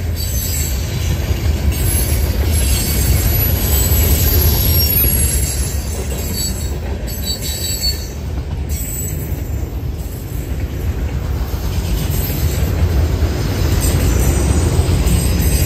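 Freight train of boxcars and autorack cars rolling steadily past. Its wheels on the rails make a continuous deep rumble, with high-pitched wheel squeal coming and going over it.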